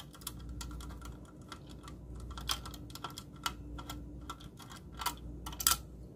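A hand screwdriver unscrewing a small screw from a circuit board, making irregular light clicks as the handle is twisted and regripped.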